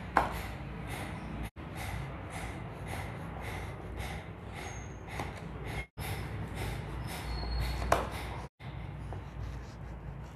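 Kitchen knife sawing through a baked, egg-glazed stuffed bread loaf on a wooden cutting board: soft rasping strokes about twice a second, with a sharp knock of the blade on the board just after the start and again about eight seconds in. A steady low hum lies underneath, and the sound cuts out briefly three times.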